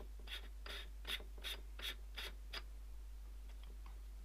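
Short rasping strokes, about two to three a second, as a threaded 0.5x reducing lens is twisted onto the bottom of a stereo microscope's objective; they stop a little past halfway, leaving a few faint ticks.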